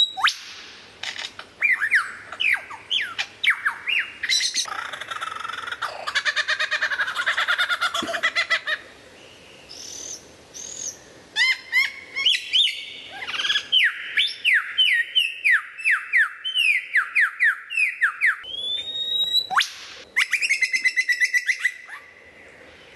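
Male superb lyrebird singing a long, varied song. It runs through rising whistles, quick rattling trills and, about two-thirds of the way in, a long series of rapid falling notes.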